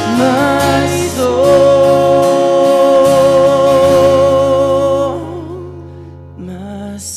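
A man and a woman singing a slow worship hymn to acoustic guitar, holding one long note that fades out about five seconds in, leaving soft guitar.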